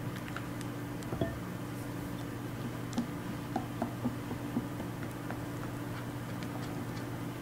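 A steady low machine hum with scattered light clicks and taps: one sharper click about a second in and a short run of soft taps around the middle.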